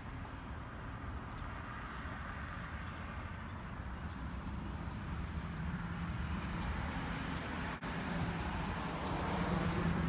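Steady rumble of a moving vehicle, with a low hum that grows louder over the second half and a momentary dropout about eight seconds in.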